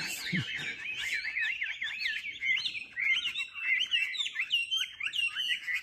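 Songbirds calling in a fast, continuous run of chirps and short whistled slurs, note after note without a break.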